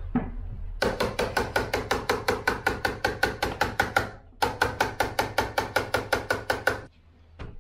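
Rapid, even tapping, about six to seven sharp strikes a second with a slight ring, in two runs of about three seconds separated by a brief pause, from hand-tool work on a small plastic electrical box fixed to a timber wall.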